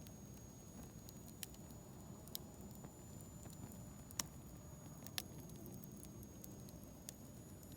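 Wood campfire crackling faintly, with a handful of sharp pops, the two loudest about four and five seconds in.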